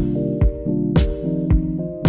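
Background music with a steady drum beat under held bass and chord notes.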